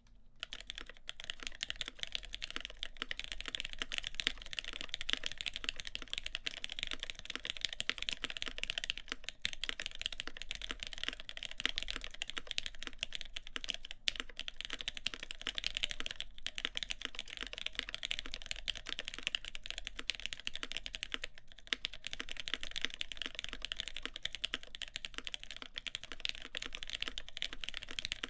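Fast continuous typing on a mechanical keyboard with lubed Gateron X switches, GMK keycaps and a full aluminium plate: a dense stream of key clicks that begins right at the start, with a few brief pauses.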